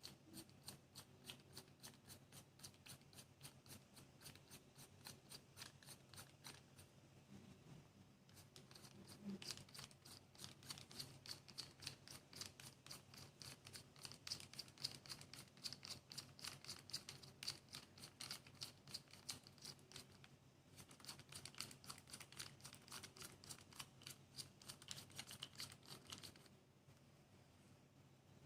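Faint, fast, regular ticking, about three to four ticks a second, over a low steady hum; the ticking stops near the end.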